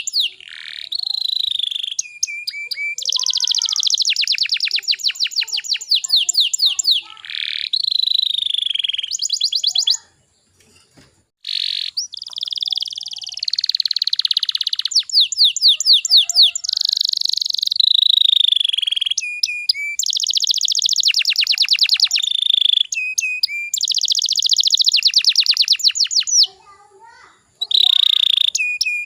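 Domestic canary singing a long song of rapid trills and rolls, phrase after phrase, with two brief pauses.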